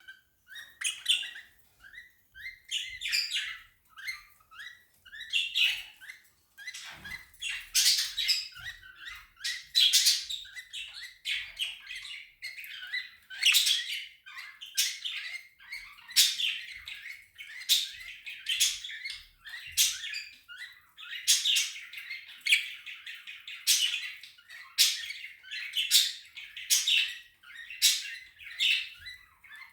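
Budgerigar squeaking: a steady run of short, shrill squeaks and chirps, about one or two a second.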